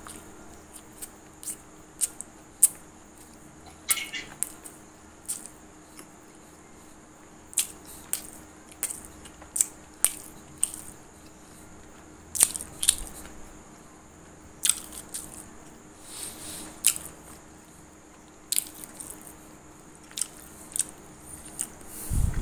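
Close-up chewing of crunchy popcorn: sharp, irregular crunches about one or two a second, with short pauses between bites.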